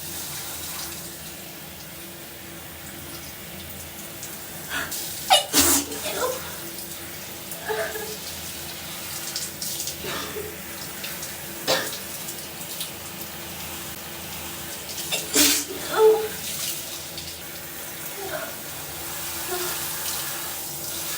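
Shower water running steadily, with a woman sneezing in sudden bursts, the loudest about five seconds in and again about fifteen seconds in. The sneezing is set off by soap in her nose and the hot steam.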